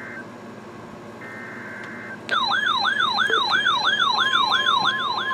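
Emergency alert tones: short buzzing data bursts of a SAME alert header, then about two seconds in a loud siren-like alarm tone sweeping rapidly up and down, about three times a second. Near the end a steady single-pitch tone joins it, the 1050 Hz NOAA Weather Radio warning alarm.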